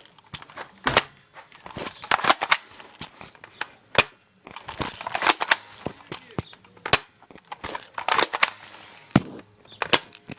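Airsoft gun firing, a string of sharp cracks in short quick clusters about a second or two apart, emptying its magazine.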